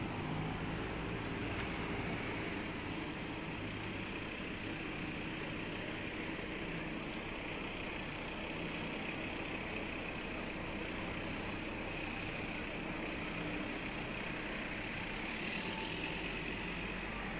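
Steady road traffic: cars and other vehicles passing on a street.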